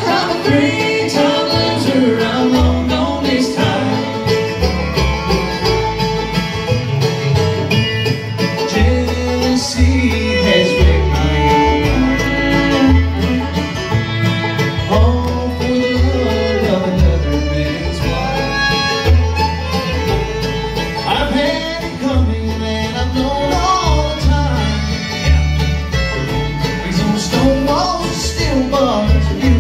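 Live bluegrass band playing: banjo, acoustic guitars and mandolin picking over an upright bass plucking a steady beat.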